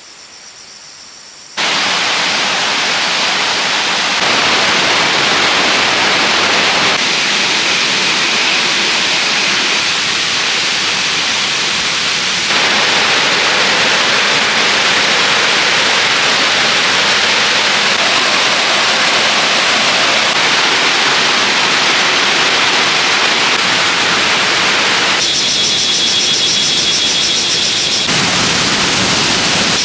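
Steady rushing of stream water, a dense hiss with no distinct events. It starts abruptly about a second and a half in and shifts abruptly in loudness and tone several times.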